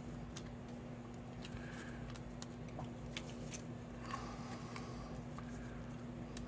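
Scattered light clicks and rustles of hands handling small paper-craft pieces, the spring 'wobble' embellishment and cardstock, over a steady low hum.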